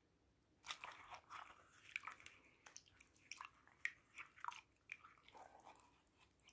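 Faint wet squishing and crackling of a soaked, soapy cross-stitch canvas being rubbed by hand in shampoo water to wash out marker lines: a string of short soft clicks and rustles starting under a second in.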